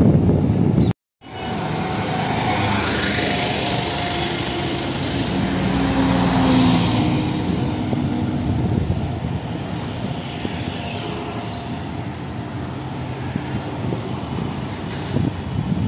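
Road traffic on an open highway: a steady wash of engine and tyre noise, with one vehicle's engine swelling as it passes about six seconds in and then fading. A low rumble, likely wind on the microphone, dominates before the sound drops out briefly about a second in.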